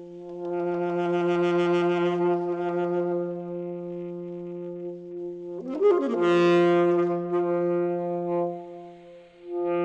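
Alto saxophone playing long held notes over a steady low tone, with a louder attack and a quick bend in pitch about six seconds in and a brief drop in level just before the end.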